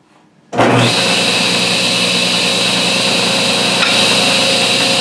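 Table saw switched on about half a second in, its motor and blade coming up to speed and then running steadily with a high whine.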